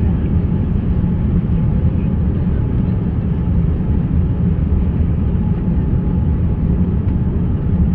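Steady low rumble of jet airliner cabin noise, engines and airflow heard from a passenger seat, with a faint steady hum above it.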